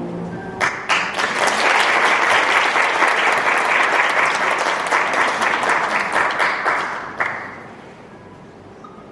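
Congregation applauding at the end of an orchestra piece. The clapping starts about half a second in and stops fairly suddenly about seven seconds in.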